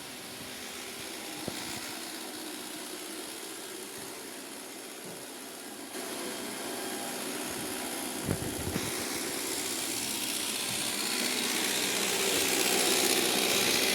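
Roomba robot vacuum running, its motor and brushes making a steady mechanical whirr that steps up about six seconds in and grows gradually louder, with a couple of short knocks about eight seconds in. To its owner the sound is completely different from normal even with a cleaned filter; he suspects the two months it stood unused.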